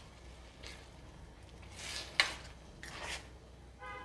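A spatula stirring cooked whole masoor lentils in masala in a stainless-steel pan: soft, wet scraping strokes about once a second, with one sharper clink of the spatula against the pan about two seconds in.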